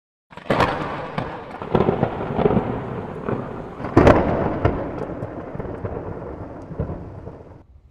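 Thunder-like rumbling sound effect with several sharp cracks, the loudest about four seconds in, slowly fading and cutting off abruptly just before the end.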